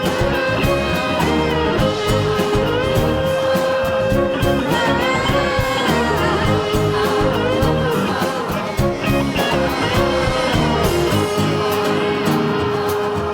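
Live band music: a sustained, bending lead melody over guitar, drums and bass, with no break in the playing.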